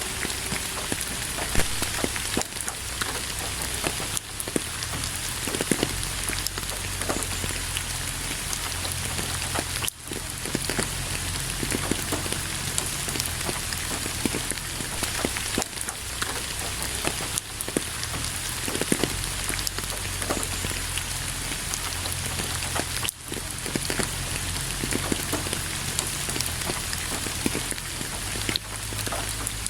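Steady rain falling, an even hiss full of many distinct drop hits, with two momentary dips in level, about ten seconds in and again about twenty-three seconds in.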